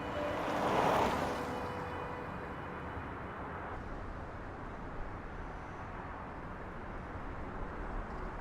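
A rushing whoosh swells and fades about a second in, followed by steady outdoor ambient noise.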